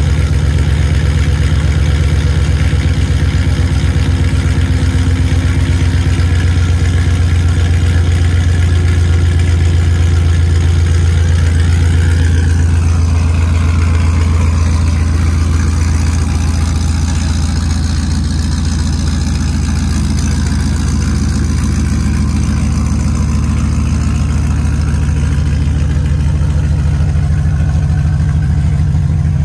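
Chevrolet Silverado pickup's engine idling steadily just after a cold start, its exhaust running through long-tube headers and true dual pipes with no catalytic converters and no mufflers, giving a loud, deep rumble.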